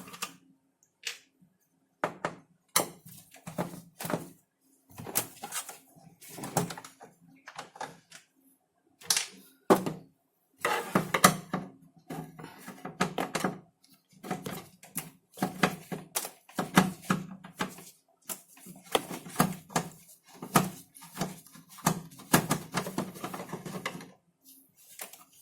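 Screws being undone from a flat-screen TV's plastic back cover: irregular clicking and rattling of screwdriver and screws against the plastic, in short bursts.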